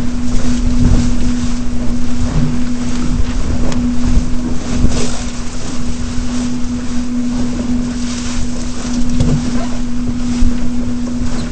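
Wind buffeting the microphone and water rushing along the hull of a Flying Dutchman sailing dinghy under way, with a steady low hum throughout.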